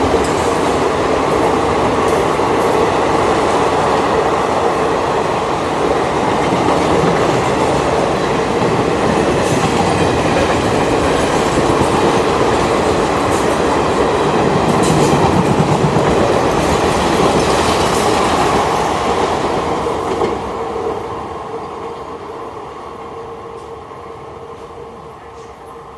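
Express passenger train rushing through a station at speed: a loud, steady rumble of wheels on rails with clicking over the rail joints. About twenty seconds in it starts to fade steadily as the train draws away.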